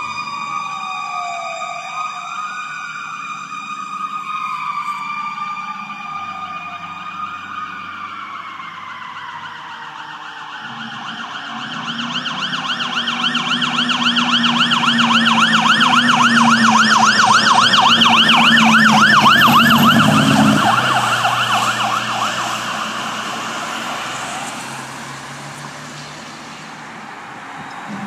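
Fire truck sirens. At first a siren wails slowly up and down over a steady, slowly falling tone. Then a fast yelp grows loud as a fire truck drives past with its engine running, about 20 seconds in, and fades away afterwards.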